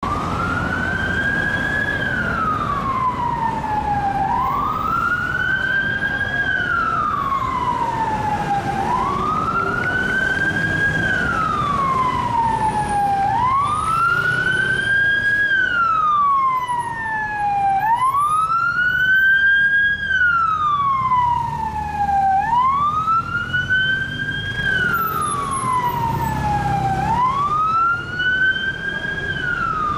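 Siren of an unmarked police Vauxhall Astra on a slow wail, each cycle rising for about two seconds and falling for about two, repeating steadily, over the rumble of road traffic.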